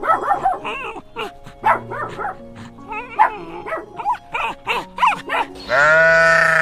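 A puppy yipping and whimpering in a quick run of short, high calls, then near the end a sheep bleats once, long and loud. Soft background music runs underneath.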